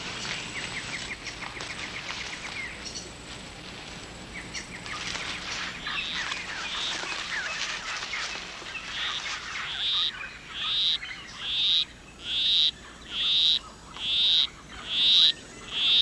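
Male poison arrow frog's monotonous courtship song: one short chirping call repeated steadily a little more than once a second, growing louder from about ten seconds in. Under it, rainforest chirps and fast trills.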